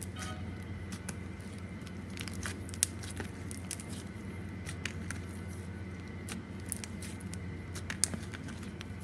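Clay slime being squished and poked by hand: scattered crackles and small air-bubble pops, with two sharper pops about three seconds in and near the end.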